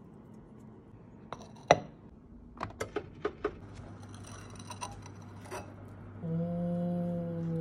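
Clinks and knocks of an earthenware kamameshi pot and its wooden lid being handled: one sharp clink, then a quick run of about five clicks. A held low-pitched tone comes in near the end.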